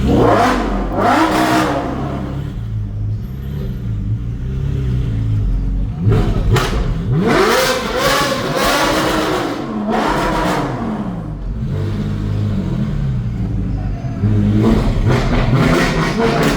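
Ferrari 458's V8 with an aftermarket 'Secret Weapon' exhaust, very loud, revving up hard several times in a row. Each time the pitch climbs and then drops back as it shifts or lifts off.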